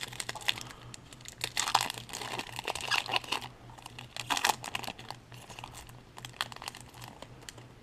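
Wrapper of a baseball card pack being torn open and crinkled by hand: irregular crackling and rustling, busiest from about one and a half to four and a half seconds in, over a faint steady low hum.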